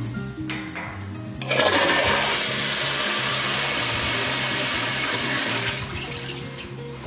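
Stainless steel RBA Blow Out Jet toilet flushing: a sudden loud rush of water starts about a second and a half in, runs steadily for about four seconds, then tapers off as the bowl clears its load of dog food.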